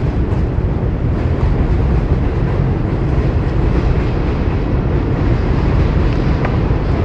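Wind buffeting the phone's microphone: a steady, loud low rumble that flutters unevenly, with a few faint ticks.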